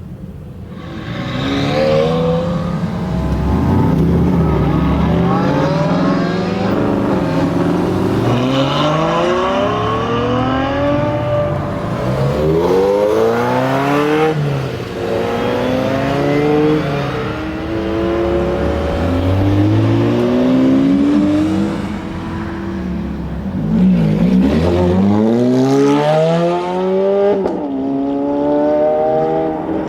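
Supercar engine accelerating hard, its pitch climbing and falling back again and again as it shifts through the gears.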